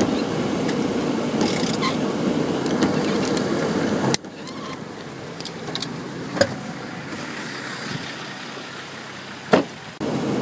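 Turbulent floodwater rushing and churning, a steady loud roar that drops suddenly to a quieter rush about four seconds in, with two brief knocks.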